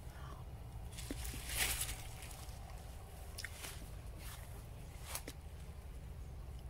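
Quiet outdoor rustling with scattered light clicks and a brief louder rustle about a second and a half in, over a low steady rumble.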